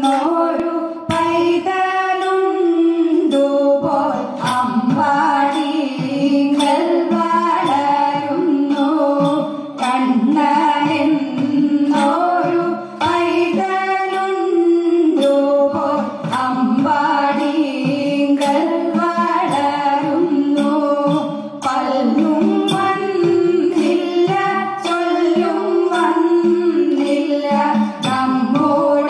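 A woman singing a song over instrumental accompaniment, the music for a group dance.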